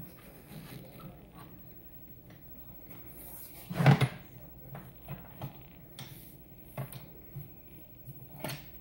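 A few scattered knocks and clicks over a faint steady hum, the loudest a short thump about four seconds in.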